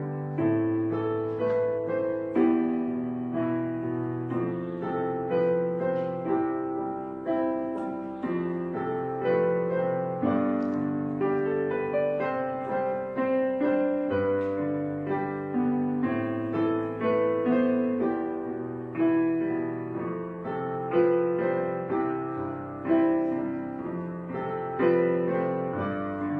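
Gentle background piano music, slow notes and chords played steadily.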